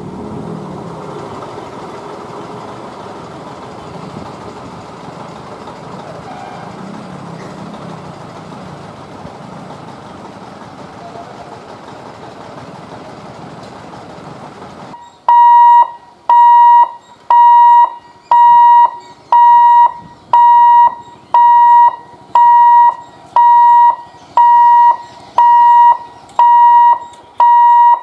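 An EMU electric local train running along the track, its rumble slowly fading. About halfway through, a loud electronic warning alarm starts: a single high beep repeated evenly, about one and a half times a second, typical of a level-crossing gate warning.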